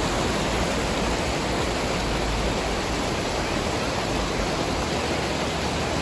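Shallow mountain river rushing over rocks and small rapids: a steady rush of water.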